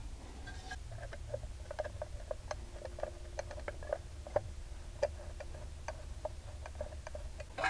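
Screwdriver turning a screw and metal parts being handled as the lens assembly is fitted back into a painted metal sport mirror head: a string of small, irregular clicks and ticks, over a low steady hum.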